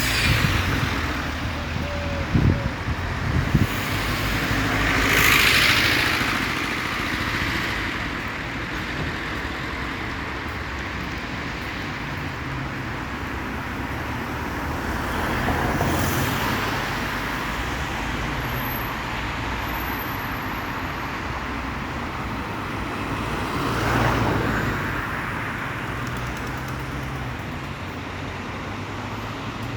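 Road traffic: a steady rumble with vehicles passing one after another. The clearest passes swell and fade about five seconds in, around sixteen seconds and around twenty-four seconds, with a few short knocks between two and four seconds.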